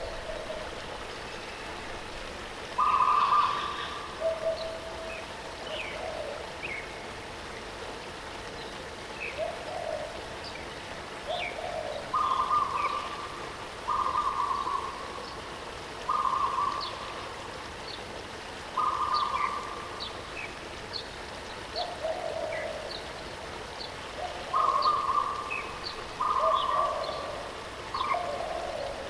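Birds calling over the steady rush of a waterfall: short repeated calls at a lower and a higher pitch every second or two, with quick high chirps scattered between them.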